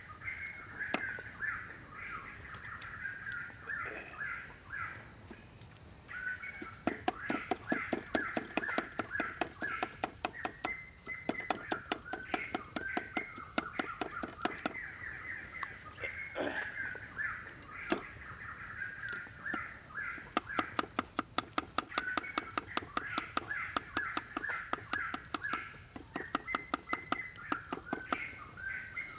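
Cleaver chopping fast on a wooden chopping block, mincing garlic and chili, at about five chops a second in runs with short pauses; the chopping starts several seconds in. Birds chirp and a steady high-pitched hum carries on underneath.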